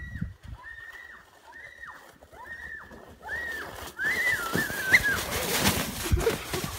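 A child's high-pitched squeals, repeated about six times, each held and then dropping off, while a plastic sled slides down a snowy track. From about four seconds in, the sled's hiss over the snow grows louder, with a sharp bump about five seconds in and a thud as she spills into the snow near the end.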